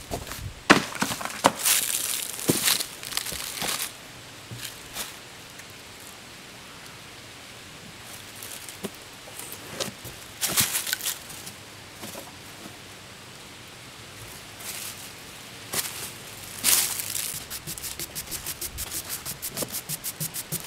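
Scattered knocks and rustles of wood being handled on the sawmill bed. In the last few seconds a hand brush sweeps sawdust off a freshly cut white ash log in quick, even strokes that speed up toward the end.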